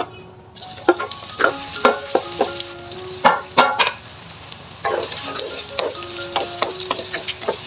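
Food sizzling in hot oil in a pan while it is stirred, with a spatula clicking and scraping against the pan many times. The sizzle starts about half a second in and grows louder about five seconds in.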